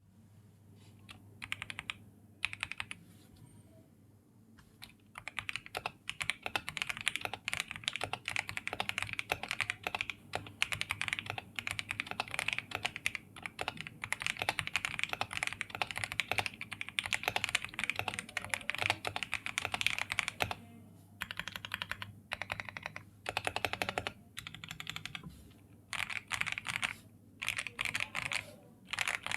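Typing on an Akko MOD007B PC mechanical keyboard in stock form: a few separate keystrokes at first, then fast continuous typing, then shorter runs of keystrokes with short pauses between them.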